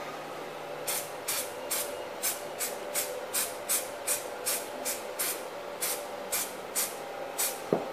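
Aerosol can of silicone spray hissing in about sixteen short puffs, two or three a second, starting about a second in and stopping near the end, as a light dusting of lubricant is laid into a 3D-printed mold's cavities.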